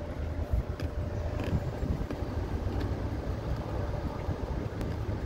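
Steady low rumble of a stopped car's idling engine, heard from inside the cabin, with a faint steady hum.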